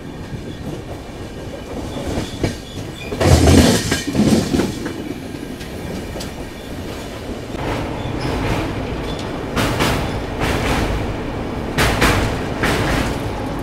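Express passenger train running at speed, heard from a coach doorway: steady rumble and wheels clattering over rail joints. The clatter grows louder about three seconds in and again through the last few seconds.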